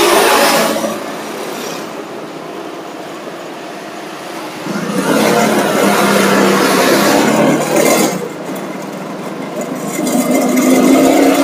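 Engine and road noise of city traffic heard while riding in an auto rickshaw, swelling and fading in waves, with an engine rising in pitch near the end.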